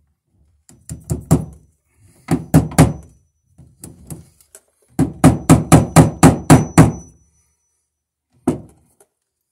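Hammer driving cable staples into wooden wall boards to fasten an electrical cable. The blows come in short groups: three, then four, then a few light taps, then a quick run of about nine strikes, and one last blow near the end.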